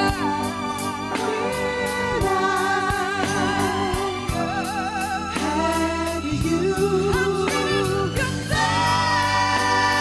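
A boy singing solo with vibrato over a live band of keyboards and drums, with a steady cymbal beat.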